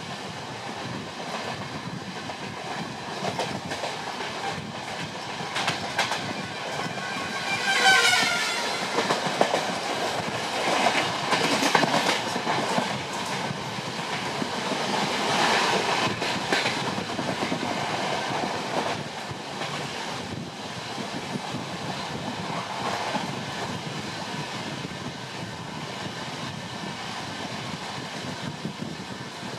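Passenger train running on the rails, its wheels clicking over the rail joints, with a brief horn blast about eight seconds in whose pitch bends.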